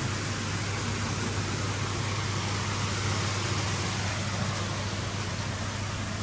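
Koi pond pumps and filtration running: a steady low hum over an even rushing noise.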